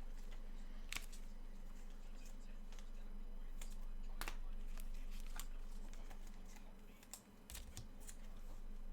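Trading cards and packs being handled: scattered light clicks and rustles, over a steady low electrical hum.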